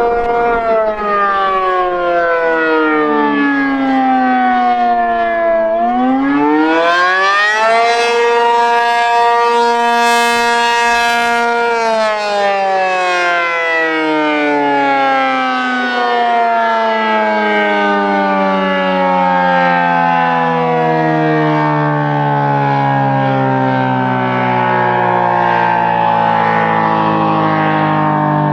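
ACA P-50 outdoor warning siren sounding the attack signal, a chord of several tones gliding together. The pitch falls for about five seconds, rises again about six seconds in, holds steady for about four seconds, then slides down slowly and steadily through the rest.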